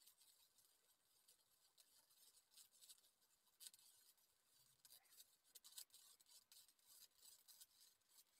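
Very faint, irregular crackling of an electric welding arc as a bead is run on steel angle iron.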